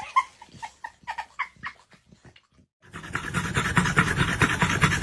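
A dog giving a string of short, high-pitched whines, then, after a brief gap, a dog panting fast and heavily close up, the loudest part.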